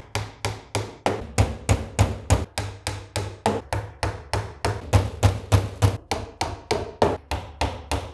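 Hammer driving small nails through a fibreboard back panel into a dresser frame, in quick, even blows of about three a second, each with a low thud.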